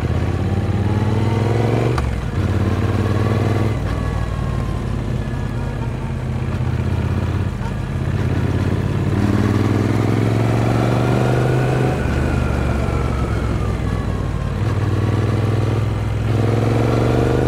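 A stock-exhaust 2023 Triumph Speed Twin 900's parallel-twin engine runs under way on the road. Its pitch rises and falls several times with the throttle, climbing clearly about halfway through and again near the end.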